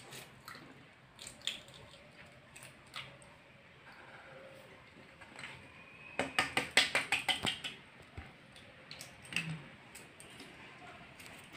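Hard-boiled eggs being peeled by hand: eggshell crackling with scattered small clicks, and a quick run of about eight sharp taps about six seconds in.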